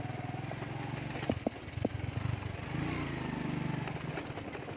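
Motorcycle engine running under way on a bumpy dirt road, with a few sharp knocks about a second and a half in and the engine note rising near the three-second mark.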